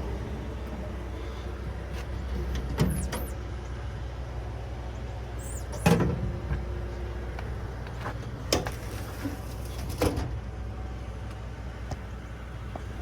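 Metal service-body compartment doors on a Ford F550 mechanics truck being opened and shut, giving four separate clunks with latch clicks. Underneath is the steady low idle of the truck's 6.8-litre V10 gas engine.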